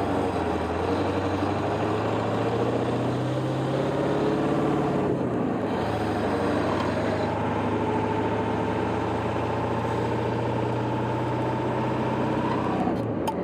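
Ford 7.3 diesel pickup engine pulling a heavy load, its note slowly rising as it accelerates. It briefly drops for a gear change about five seconds in and again near the end.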